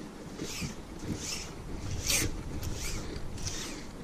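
Paracord being paid out hand over hand, a series of quick zipping strokes as the cord slides through the hand and over the fir branches.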